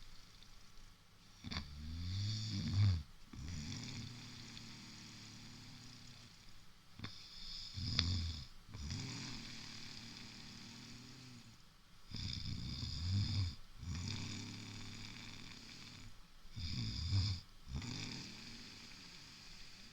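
Heavy snoring: four loud, rough snores about every four to five seconds, with softer breathing between them.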